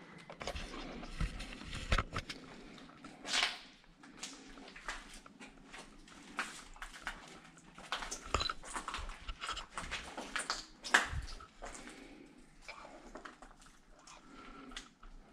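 Irregular knocks, clicks and scuffs from people moving about a small cluttered room, with the sharpest click about eleven seconds in.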